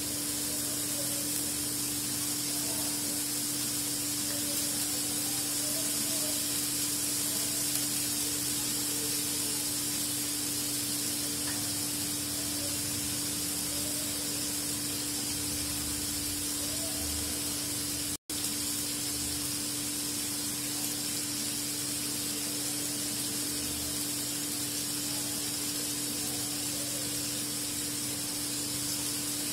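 Prawns frying in oil in a flat nonstick pan: a steady sizzling hiss, with a steady low hum underneath. The sound cuts out for an instant a little past the middle.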